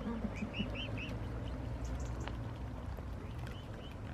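Ducks quacking, a quick run of short calls in the first second or so, over a low steady rumble.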